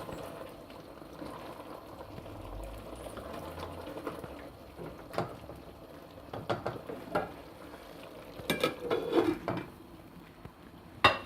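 Tinda and chicken curry simmering and bubbling in its own released water in a pot on low heat. Scattered sharp clinks of utensils against the pot come in the second half, with the loudest one near the end.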